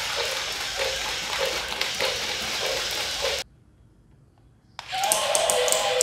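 Remote-control walking dinosaur toy running: its motor and gears whirring, its feet clicking on the tile floor, and its electronic growl sounds playing. The sound cuts out to near silence for about a second past the middle, then comes back with sharper clicking and the growl again.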